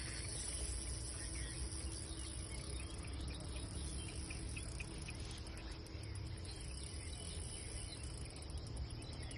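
Insects chirping in a steady, high, fast-ticking trill, over a low rumble.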